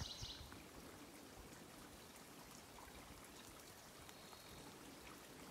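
Near silence: a faint, steady hiss of forest ambience, with one faint, high, thin whistled note about four seconds in.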